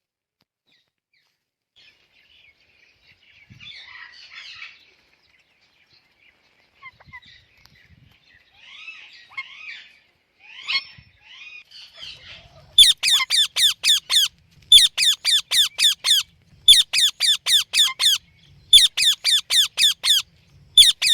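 Parrot chattering softly, then breaking into loud, sharp chirps that fall in pitch. The chirps come in rapid bursts of five or six, a burst about every two seconds.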